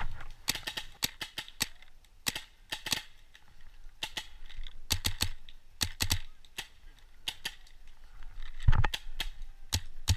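Paintball markers firing in quick strings of sharp pops with short pauses between strings, including the camera wearer's Empire Axe electronic marker; the loudest pop comes a little before the end.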